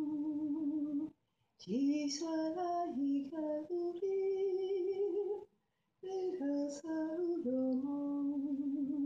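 A woman singing unaccompanied: a slow melody of held notes in three phrases, with two short pauses for breath.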